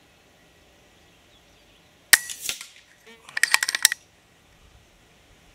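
A single shot from an FX Impact .22 PCP air rifle about two seconds in: a sharp crack that dies away quickly. About a second later comes a quick run of metallic clicks.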